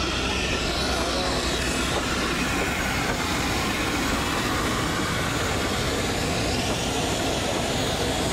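Steady, fairly loud airport apron noise at an open aircraft door: an even rush of jet and ground-equipment noise across all pitches, with no breaks.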